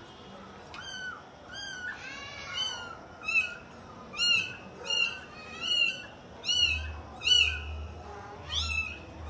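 Kitten mewing over and over: a dozen or so short, high-pitched mews, each rising and falling, about one every half-second to second, getting louder from about three seconds in.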